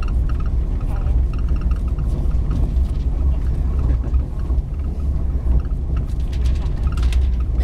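Steady low rumble of a moving train heard inside the carriage, with faint voices in the background.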